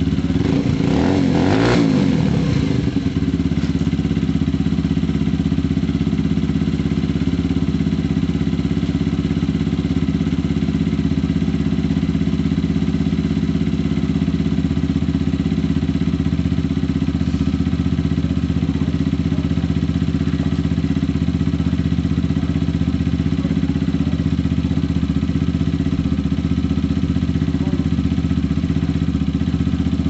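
Lexmoto Tempest GT 125's single-cylinder four-stroke engine idling on its stand while it warms up, with one short blip of the throttle about a second in, rising and falling back to a steady idle.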